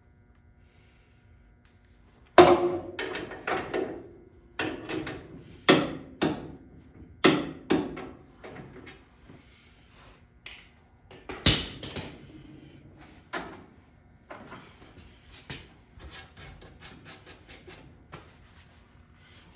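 Hand tools and steel suspension parts knocking and clanking as a lower control arm is fitted and bolted up, a series of irregular sharp knocks. Near the end comes a run of quick, even clicks.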